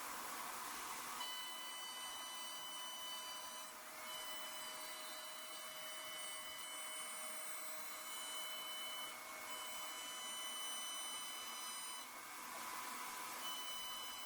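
CNC router milling with a 3 mm flat end mill: a steady hiss runs throughout, and a high multi-tone whine from the axis motors starts and stops in four stretches as the machine moves between cuts.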